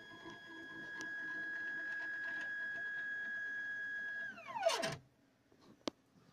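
Stepper motor driving the X-axis lead screw of a home-built CNC machine: a steady high whine that drops sharply in pitch as the axis slows and stops about five seconds in, followed by a sharp click or two.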